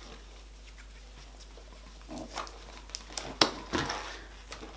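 Latex modelling balloons squeaking and rubbing against each other as two balloon ends are knotted together by hand. The squeaks start about two seconds in, with a few sharp clicks in the middle.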